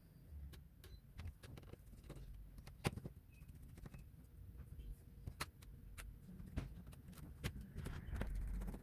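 Scattered light clicks and taps of plastic parts and small tools being handled while a laptop is taken apart. One sharper tap comes about three seconds in, and there is a low rubbing or handling noise near the end.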